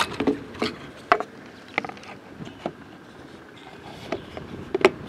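Plastic air filter housing and paper filter of a Honda GCV160 mower engine being handled and clipped back into place. It gives scattered light clicks and knocks, the sharpest about a second in and two close together near the end.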